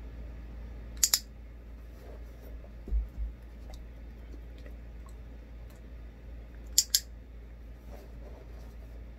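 Dog-training clicker clicked twice, each a sharp double click of press and release, about a second in and again near seven seconds, marking the dog's chin rest for a treat. A couple of dull low thumps about three seconds in.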